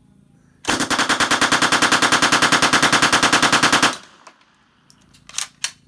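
Submachine gun fired full-auto in one long burst of about three seconds, the shots coming at a rapid, even rate of roughly ten a second and stopping abruptly. About five seconds in, two sharp clicks follow.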